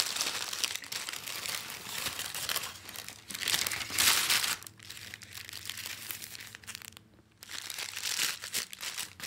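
Paper burger wrapper crinkling and rustling as it is unwrapped by hand, in uneven bursts. It is loudest about four seconds in, with a brief pause a little after seven seconds.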